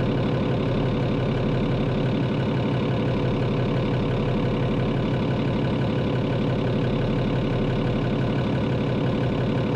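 Yanmar 6LY3-ETP six-cylinder turbocharged marine diesel idling steadily, heard up close in the engine room, with a fast, even pulse and a constant whine on top. It is running freshly started after a transmission oil cooler replacement, while the engine is checked for leaks.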